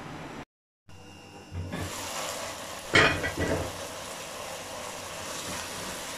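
Ridge gourd curry sizzling in a pot, a steady hiss, with one sharp knock about three seconds in and a wooden spoon stirring through the thick masala. The sound drops out for a moment just after the start.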